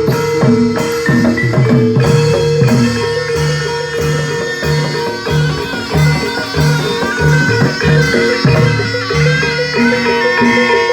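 Javanese gamelan music of a barongan troupe: tuned metal mallet percussion plays a repeating pattern over a held note, with drums and a higher melody line.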